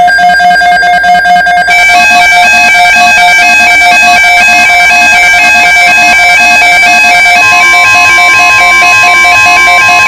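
NOAA Weather Radio receivers going off together for an EAS alert: a loud electronic alarm of repeating, alternating tones that starts suddenly with a harsh buzzing first second or so. About seven seconds in, a steady single-pitch tone joins, the 1050 Hz Weather Radio warning tone that comes before the broadcast warning.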